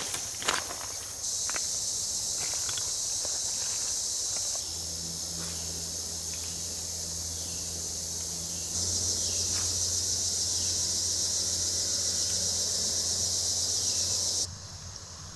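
Chorus of insects, a steady high-pitched drone that swells louder twice and drops off abruptly near the end. A few clicks come in the first second, and a low hum runs through the middle.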